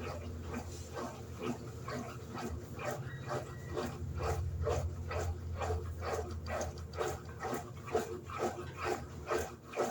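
Electrolux LED14 top-loading washing machine agitating: a steady run of sloshing strokes, about three a second, over a low motor hum.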